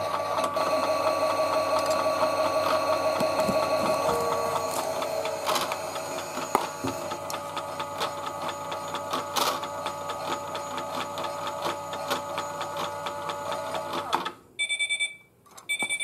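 Small electric motor of a toy Miele W1 washing machine spinning its drum, a steady whine with scattered light clicks. About fourteen seconds in the motor stops and a few short high electronic beeps follow.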